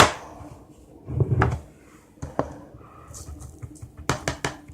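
Small clicks and knocks of a salt container, spoon and plastic cup being handled as salt goes into the gel, with a short muffled thump a little over a second in and a quick cluster of clicks near the end.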